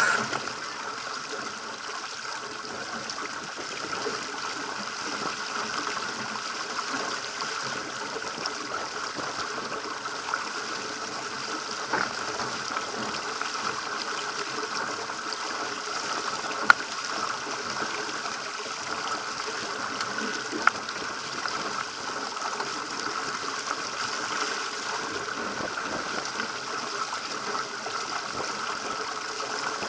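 Water rushing and splashing along the hull of a Pacer sailing dinghy under way in choppy sea, a steady rush of noise. A few short sharp knocks or clicks break through, the loudest about 17 s in.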